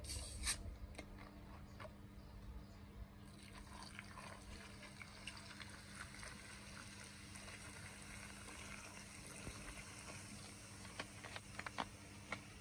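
Plastic Coca-Cola bottle cap twisted open with a brief hiss, then the cola fizzing steadily as it foams over snails in a wok, with scattered small pops and clicks near the end.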